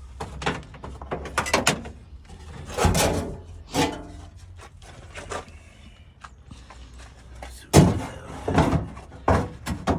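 A string of irregular knocks and clunks, as of tools and metal being handled and set down, with the loudest knock about three-quarters of the way in, over a low steady hum.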